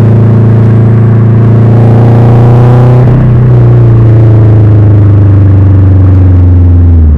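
Subaru Impreza GB270's turbocharged flat-four running through a custom 3-inch exhaust, a loud, steady low exhaust note. The pitch wavers about three seconds in and dips briefly near the end.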